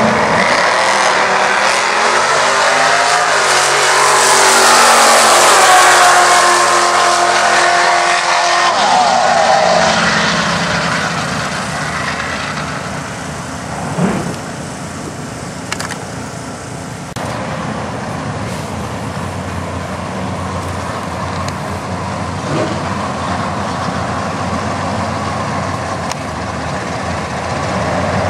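A front-engine dragster's engine at full throttle as it launches and runs down the drag strip, its note shifting in pitch, loudest about five seconds in, then fading into the distance. Afterward a lower, steady rumble of other race cars' engines comes from cars waiting at the line.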